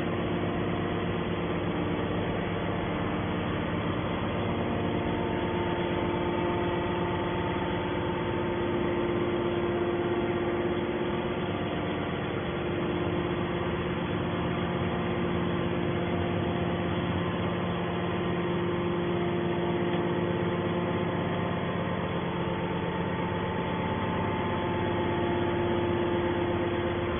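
Hydraulic scrap metal baler's electric motor and hydraulic pump running, a steady mechanical hum with several held tones that fade in and out.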